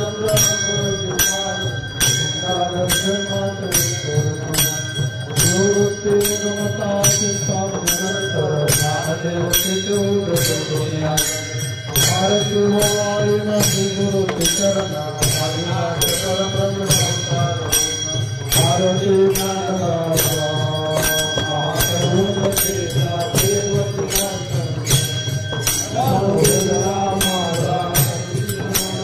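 Warkari bhajan: a group of men singing a repeated devotional chant over a steady, even beat of ringing brass hand cymbals (taal) and two-headed barrel drums (mridang).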